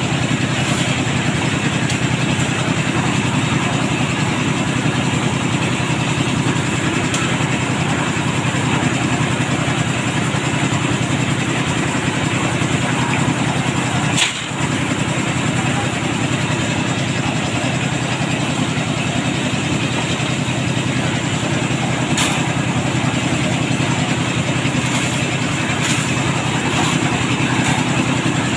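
Concrete mixer with a loading hopper running steadily, its engine holding an even speed while the drum turns.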